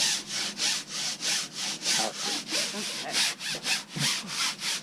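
Brisk back-and-forth scrubbing with a brush, quick even strokes at about four a second.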